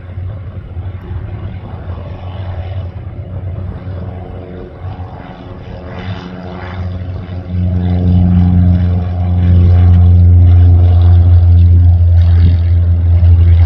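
The twin turboprop engines and propellers of a QantasLink de Havilland Canada Dash 8 running with a steady, low propeller drone. About seven to eight seconds in, the sound grows much louder and stays loud.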